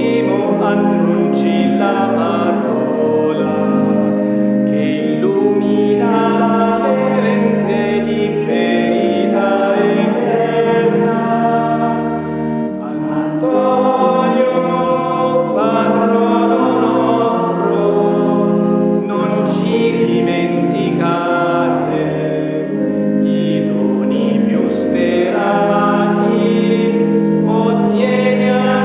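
A choir singing a hymn with organ accompaniment, in sustained chords that change every second or two.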